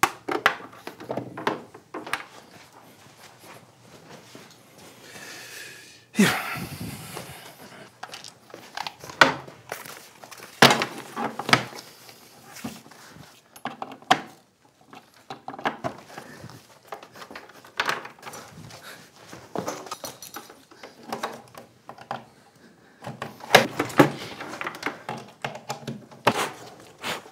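Table lamps being set down on a wooden desk and their plugs pushed into a power strip: irregular thunks, knocks and clicks of handling, with a longer scrape about six seconds in.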